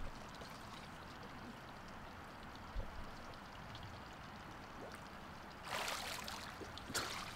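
Faint pool water lapping while a swimmer is under the surface, then two short bursts of splashing near the end as he comes up out of the water.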